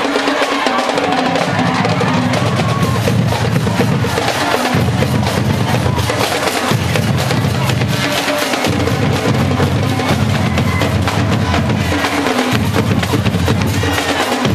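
Drums beating among marchers in a street procession. A deep beat comes in stretches of a couple of seconds with short breaks, over the clamor of the crowd.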